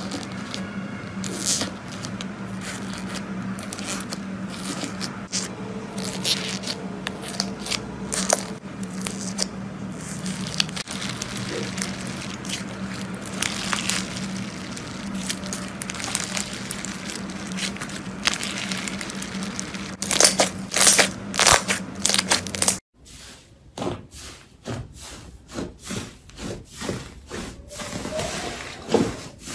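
Fingers pressing and stretching a foam-bead slime (floam with small polystyrene balls), giving a dense, continuous crackling and popping over a steady low hum, with a run of louder pops near the end of that stretch. About 23 s in the sound changes to softer, sparser squishes as hands press a large, soft slime.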